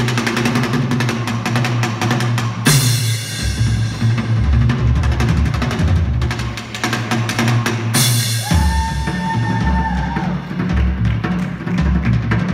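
Live drum kit solo: fast, dense fills over a driving bass drum, with a cymbal crash about a quarter of the way in and another about two-thirds of the way in, the second followed by a high ringing tone for about a second and a half.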